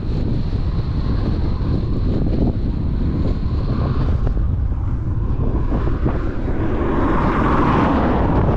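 Strong wind buffeting the microphone: a loud, steady low rumble and rush. Near the end a louder rush of noise builds.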